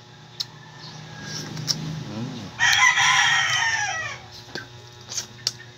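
A rooster crowing once: a single call of about a second and a half that trails off and falls at the end. A few faint clicks sound before and after it.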